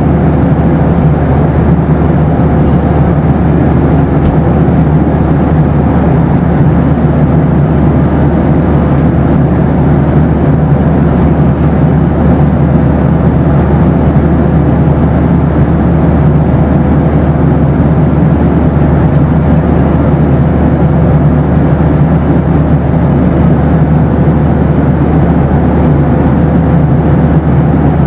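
Boeing 737 cabin noise: a steady, unchanging low rumble of engines and airflow, with a faint steady tone above it.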